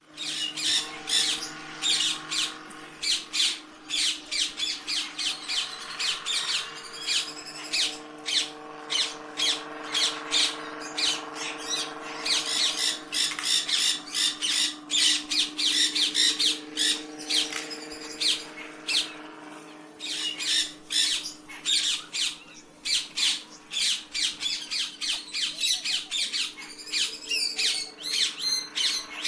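Parrot squawking over and over in short calls, several a second, over a steady low hum. The calls ease off briefly about two-thirds of the way through.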